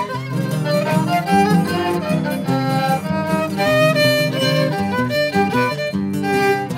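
Instrumental music: a violin melody of held notes over a low string accompaniment.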